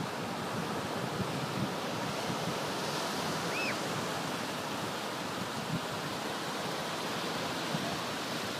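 Small ocean waves breaking and washing in over a shallow sandy beach: a steady surf wash.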